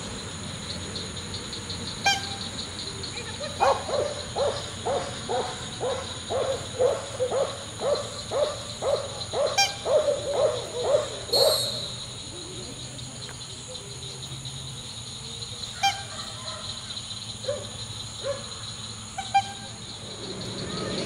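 Belgian Malinois barking in a steady rhythm, about two barks a second for some eight seconds, then stopping. These are guard barks at the decoy. A few fainter barks and sharp clicks follow later.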